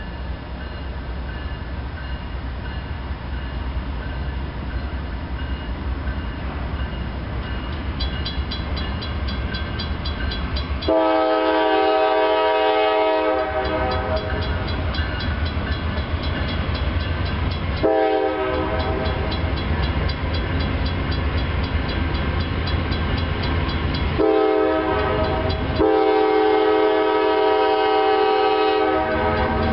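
A Norfolk Southern GE Dash 9-40CW diesel locomotive sounds its air horn for a grade crossing: a long blast, two short ones, and a final long blast as it reaches the crossing. Its diesel engines rumble under the horn and grow louder as the train approaches. A rapid steady ticking of the crossing signal's bell starts about a quarter of the way in.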